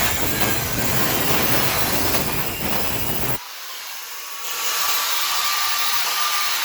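A power tool grinding or sanding, a loud, steady noisy whirr. About three and a half seconds in it cuts abruptly to a thinner, quieter hiss for about a second, then resumes with a faint steady whine.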